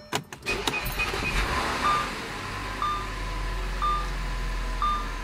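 A 2007 Audi A6's engine starts from the key: a few clicks from the ignition, then it fires about half a second in, runs up briefly and settles into a steady idle. A short dashboard chime beeps about once a second over the idle.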